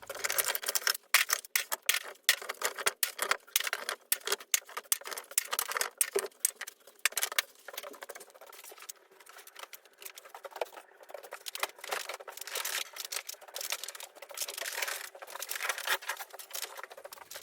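Fast-forwarded workshop clear-out: a rapid, continuous clatter of clicks and knocks as things are shifted about. The sound is thin, with no low end.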